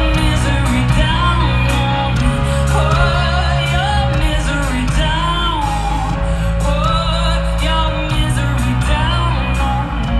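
Live rock band playing at full volume, with a woman singing lead into a microphone over drums, bass guitar, guitar and keyboards. Her sung line rises and falls over a heavy, steady low end, with regular drum hits.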